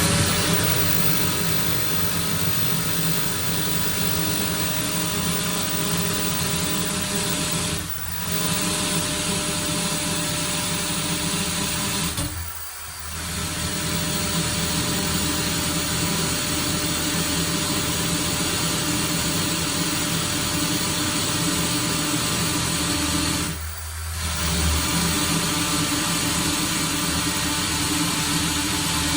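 Electric drill running steadily as a 5.5 mm bit bores through a wooden door, its motor easing off briefly three times, about 8, 12 and 24 seconds in. This is the middle step of drilling a hole up through 3.5, 5.5 and 8 mm, and the bit goes straight through.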